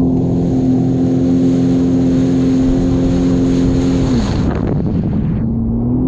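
Sea-Doo jet ski engine running at a steady speed with water and wind rushing past. About four seconds in the engine pitch drops as the throttle comes off, the rushing fades, and the engine picks back up near the end.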